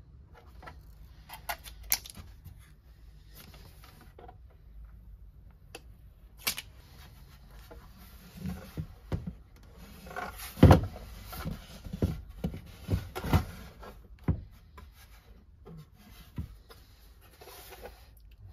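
Handling noise from a metal-cased bench DC power supply: light clicks and rustles at first, then a run of knocks and clunks about halfway through as the unit is picked up and turned over, one clunk much louder than the rest.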